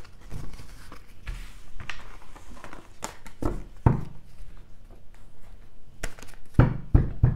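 Tarot cards being gathered off a tabletop and handled, with several knocks and taps as the deck is squared and handled, clustered about three to four seconds in and again near the end.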